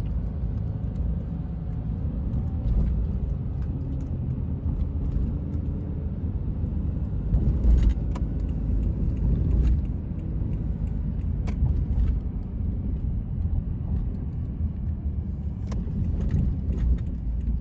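Steady low rumble of a moving road vehicle heard from inside, with scattered light clicks and rattles.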